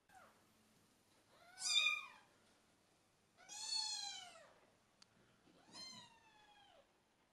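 Kittens meowing: three high-pitched meows about two seconds apart, the middle one the longest.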